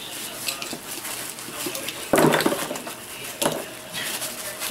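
Plastic bubble wrap crinkling and crackling as a wrapped radio is handled over a cardboard box, with a loud burst of rustling about two seconds in and a shorter one about a second later.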